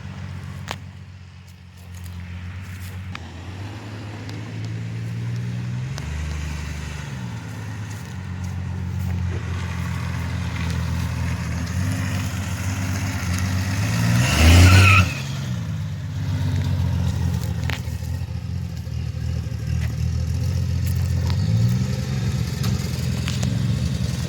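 1966 Dodge Dart's 225 slant-six engine running through a newly fitted muffler as the car drives along the street. The engine note rises and falls, and it is loudest about halfway through.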